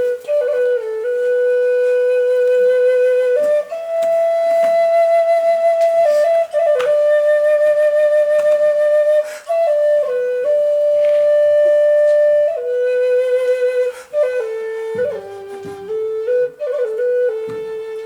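A solo flute playing a slow melody of long held notes with a slight vibrato, stepping between a few neighbouring pitches. Near the end come quicker, ornamented notes.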